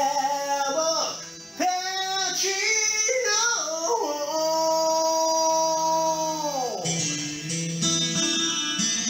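A man singing over a guitar backing track, ending his phrase on a long held note that falls away about seven seconds in, after which the guitar backing carries on alone.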